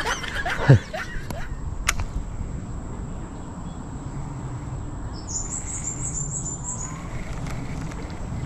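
A bird sings a quick run of about eight high chirping notes lasting about a second and a half, over a steady low background hum.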